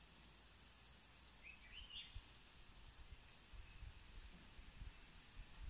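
Near silence: faint outdoor background hiss with a few faint, short, high bird chirps, and a few low thumps from about two seconds in.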